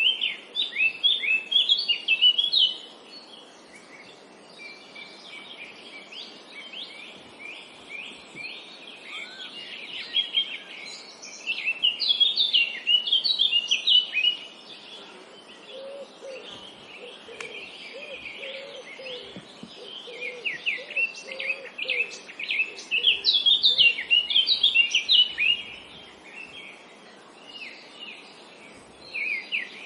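Songbirds singing in a forest, with bursts of rapid high twittering phrases every several seconds over a steady background hiss. Midway through, a series of short, lower repeated notes joins in for several seconds.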